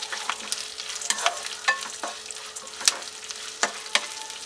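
Char magaz (mixed melon seeds) and raisins sizzling in hot ghee in a pan while being stirred, with a spatula scraping and tapping the pan several times.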